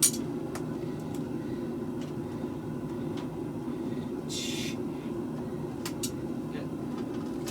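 Steady low rumble of a running forge, with a sharp click at the very start and a short burst of hiss about four and a half seconds in.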